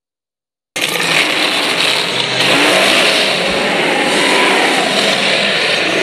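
Griffon monster sound effect layered from big-cat, Godzilla-growl and Rodan flying sounds: a sudden, loud, rough sustained noise that begins about a second in and holds steady without fading.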